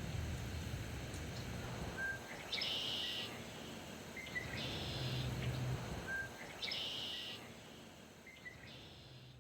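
A bird singing the same short buzzy song about every two seconds over steady outdoor background noise, fading out near the end.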